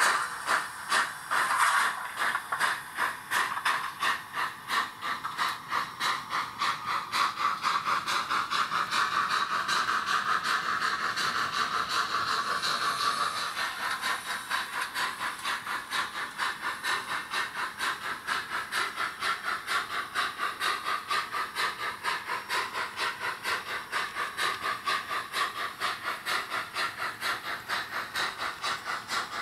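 Steam locomotive sound from an ESU LokSound V5 micro decoder in a Roco model of DR class 93 tank engine 93 822: a steady, rhythmic beat of exhaust chuffs over a continuous steam hiss as the engine runs with its train.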